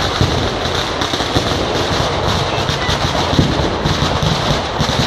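Firecrackers going off in a fast, unbroken crackle of many small bangs, like a long string of ground firecrackers burning through.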